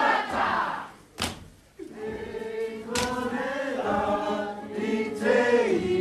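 Māori kapa haka group chanting loudly in unison. The chant breaks off about a second in, and after a short lull the men and women sing together in long held notes. Two sharp cracks sound about one and three seconds in.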